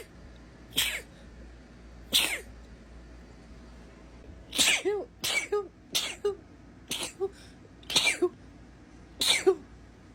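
A woman in a sneezing fit: about nine short, sudden sneezes, two spaced well apart and then a quicker run from about halfway through.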